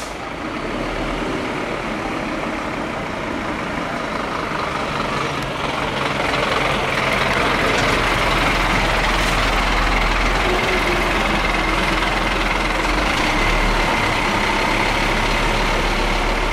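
Scania aerial ladder platform fire engine's diesel engine running as the truck drives slowly past close by. It grows louder over the first several seconds and then holds steady.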